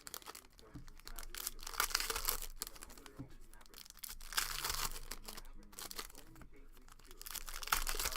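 Foil wrappers of trading card packs being torn open and crinkled, in several rustling bursts.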